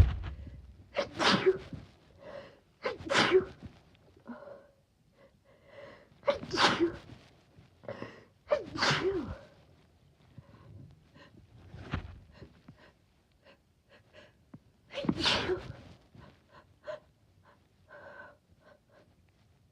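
A woman sneezing about five times, irregularly spaced, with short sniffs and breaths between the sneezes. Allergy sneezes, some of them deliberately induced.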